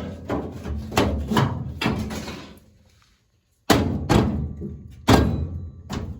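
Series of sharp knocks and thuds from hard parts being handled and fitted together, four or so in the first two seconds, then a short dead gap, then three or four more.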